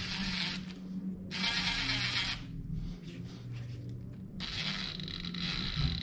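Cordless DeWalt 20V driver with an 8 mm nut-driver bit running in three short bursts as it tightens a worm-gear hose clamp on an air-intake hose.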